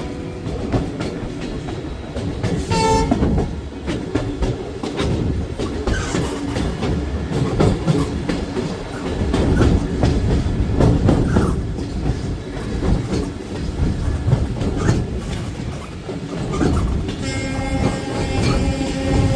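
Train running on the rails with its wheels clattering over the track joints. Its horn sounds briefly about three seconds in and again, longer, near the end.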